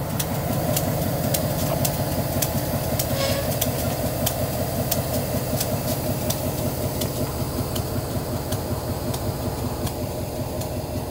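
Diesel locomotives rolling slowly past at close range, their engines running with a steady low rumble, with scattered sharp clicks throughout.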